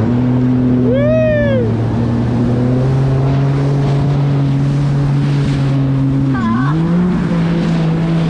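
Jet ski engine running steadily at speed, with the rush of water and spray. The revs dip briefly about six and a half seconds in, then pick back up. A short rising-and-falling call comes about a second in.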